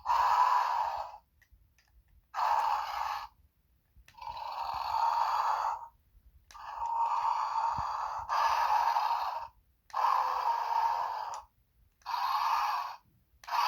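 Bakugan Dragonoid Maximus electronic toy playing its built-in sound effects: a run of hissing, breathy bursts, each a second or two long, with short silent gaps between them.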